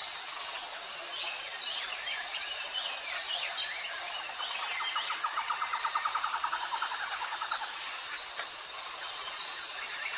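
Tropical forest ambience: a steady high insect drone pulsing about once a second, with birds chirping over it and a fast trill of repeated notes near the middle.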